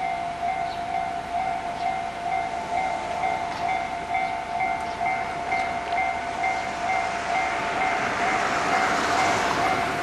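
Japanese railway level crossing's electronic warning bell starting up and ringing on in quick, even dings, about two a second, signalling an approaching JR down train before the barriers lower. A swell of rushing noise builds up towards the end.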